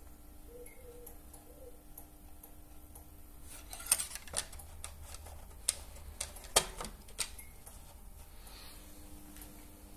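Oil dipstick being handled at the plastic filler tube of a Briggs & Stratton Intek V-twin: a cluster of sharp clicks and taps in the middle as it is wiped and its cap is put back, with faint room tone around them. The engine is not running.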